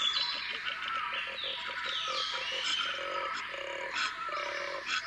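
Koala bellowing: a fast rattling series of rasping pulses for the first few seconds, then three longer snore-like grunts. Birds chirp in the background.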